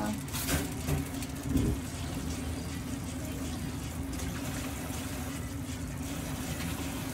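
Water being poured into a pot of adobo, a steady watery rush, over a constant low hum.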